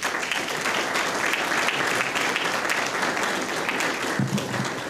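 Audience applauding, a dense crowd of clapping that tails off near the end.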